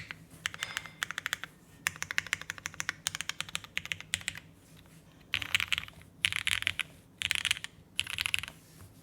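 Typing on a Geonworks F1-88 mechanical keyboard with lubed vintage Cherry MX Black linear switches, an aluminium plate and GMK keycaps. Steady keystrokes for about four seconds, then four short flurries of very rapid keystrokes, each under a second.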